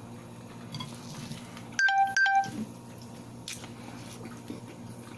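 Two short electronic beeps in quick succession about two seconds in, each a single steady tone, over a faint steady low hum.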